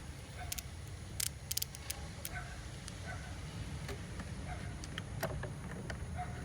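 Irregular light clicks and clinks of hand tools on metal while working on a car's battery terminal, several close together about a second in, over a steady low rumble.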